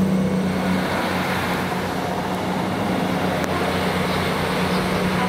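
Northern Class 158 diesel multiple unit's underfloor diesel engines running with a steady low drone and wheel noise as the train moves away along the platform.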